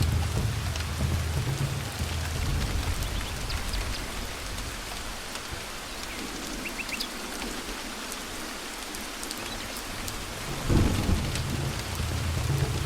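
Steady rain falling, with low rolling thunder that dies away in the middle and then a sudden thunderclap about eleven seconds in, after which the rumbling resumes.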